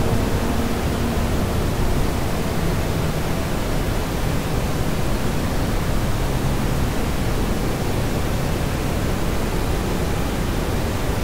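Steady, even rushing noise like pink noise, with no pitch or rhythm and heaviest in the low end, from the playback of an audio project.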